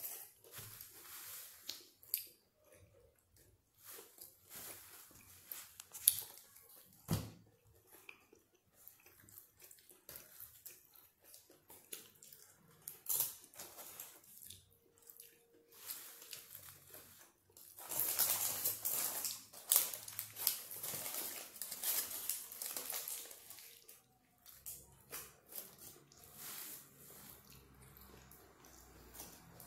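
Close-up chewing and biting of a shawarma wrap, with soft wet mouth clicks and smacks scattered throughout and a louder, busier stretch of about five seconds past the middle.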